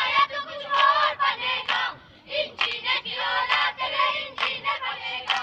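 A group of children's high-pitched voices sounding together, with a short break a little past two seconds in.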